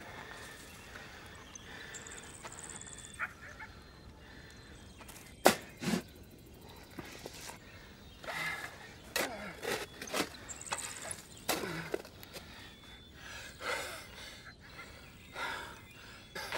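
A man sobbing and gasping in short, broken bursts, after a couple of sharp knocks.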